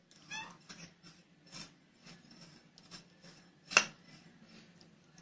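Steel spoon stirring and scraping dry powdered biscuit mix in a plate: faint, scratchy rubbing with one sharper clink of the spoon against the plate a little under four seconds in.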